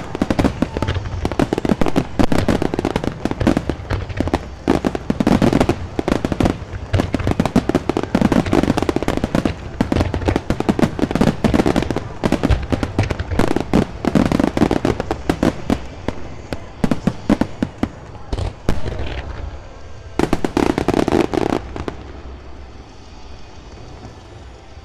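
Fireworks display: a rapid barrage of overlapping bangs and crackles from bursting shells, thinning out and stopping about three seconds before the end.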